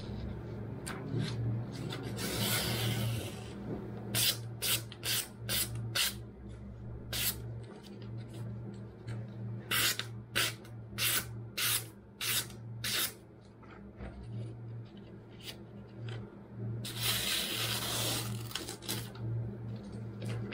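Freshly sharpened kitchen knife slicing through glossy magazine paper in a cutting test of the edge. There are two runs of quick, crisp slices about half a second apart, with longer rustling paper cuts and handling before and after.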